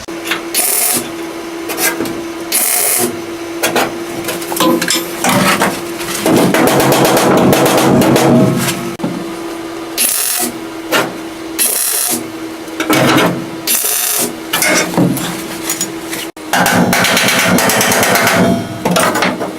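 A warped, bead-rolled 16-gauge sheet-steel panel being worked flat and clamped into place: repeated irregular metal knocks and clatter, with a steady hum underneath that keeps breaking off.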